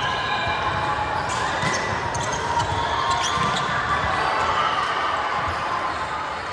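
Indoor volleyball rally on a hardwood court: the ball being struck and players' footsteps and shoes on the floor, a scattering of short knocks and squeaks over a steady murmur of voices in the hall.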